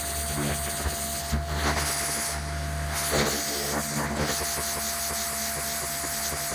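Pressure washer running steadily, with the hiss of the water jet spraying.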